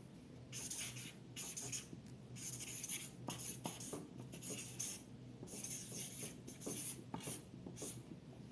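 Handwriting: about a dozen short scratching strokes of a pen on a writing surface, coming in quick uneven runs.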